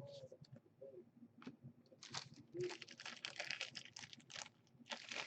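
Trading cards being handled and flipped through by hand, a quick run of soft rustling and card-on-card slides from about two seconds in.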